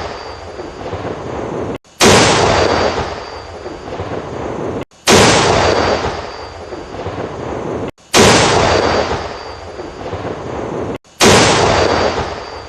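Tank cannon firing, one heavy blast at a time, four times about three seconds apart. Each shot trails off in a long fading rumble that cuts off abruptly just before the next, the same shot repeated as a loop.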